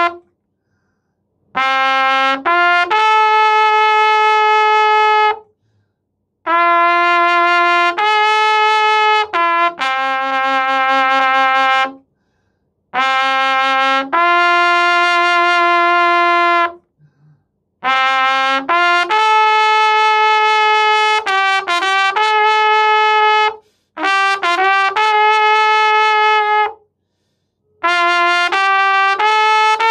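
A beginner playing a trumpet: six short phrases of long held notes that step up and down between a few pitches, each phrase followed by a pause of about a second.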